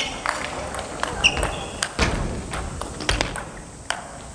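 Table tennis ball clicking off rackets and the table during a rally, the strokes coming at uneven intervals, in a large hall.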